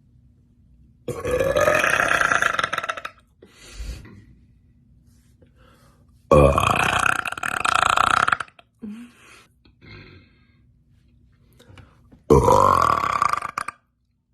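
A woman belching loudly three times, each a long, drawn-out burp of about two seconds, its pitch rising at the start.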